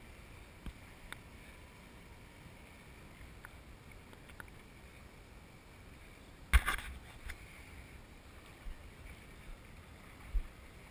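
Small waves lapping against a microphone held at the water's surface, with one sudden louder splash about six and a half seconds in. A faint steady whine sits underneath.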